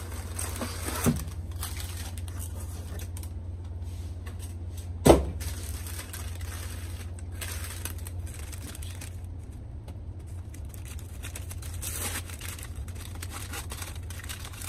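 Brown kraft paper crinkling and rustling as a paper-wrapped plant is handled and unwrapped. There is a light knock about a second in and a sharp thump about five seconds in, the loudest sound, as the wrapped plant is set down on a wooden bench. A steady low hum runs underneath.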